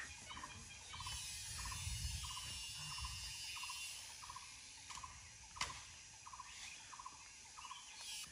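An animal calling over and over in a steady rhythm: short rattling notes about twice a second. A faint hiss runs for the first few seconds, and a single sharp snap comes about five and a half seconds in.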